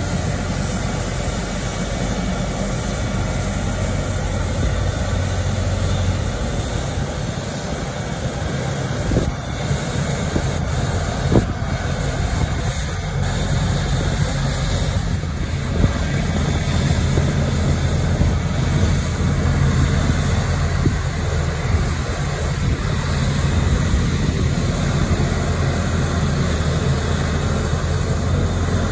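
Steady low engine drone as a tow tractor tows an Ilyushin Il-76TD freighter, swelling slightly past the middle, with a few sharp knocks between about 9 and 16 seconds in.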